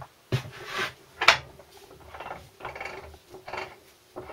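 Land Rover Series 3 gearbox being turned over by hand: a string of rasping, rubbing strokes about every half second, one sharper than the rest just over a second in. The noise is the gear selectors dragging, a sign that they are not yet set up properly.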